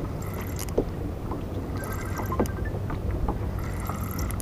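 Wind buffeting the microphone in a rainstorm, a steady low rumble, with a few small clicks and knocks.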